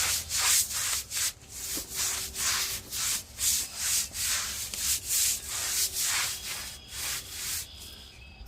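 Pressure washer spray hissing against a concrete patio in repeated surges, about two or three a second, dying down near the end.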